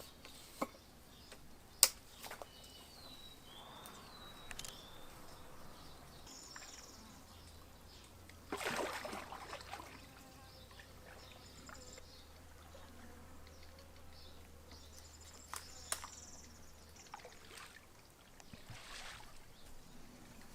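Quiet water sounds of a paddleboard paddle dipping and dripping, with one louder swishing stroke about eight and a half seconds in. A few sharp clicks and some faint short chirps are scattered through it.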